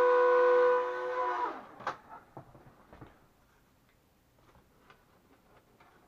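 Twin small electric propeller motors of a lightweight home-built RC plane running with a steady high whine, then winding down and stopping about a second and a half in. A sharp knock follows, then faint ticks and rustling as the plane is handled.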